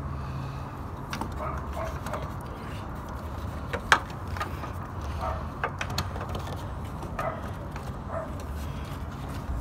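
Hands working a plastic LED headlight-bulb connector and its wiring into the headlight housing: light clicks and knocks of plastic parts, with one sharp click about four seconds in.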